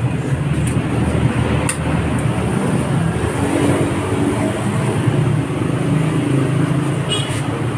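Steady low rumble of motor traffic or a running vehicle engine. Two sharp metallic clicks, about two seconds in and near the end, come as locking pliers work the bicycle's bottom bracket cup.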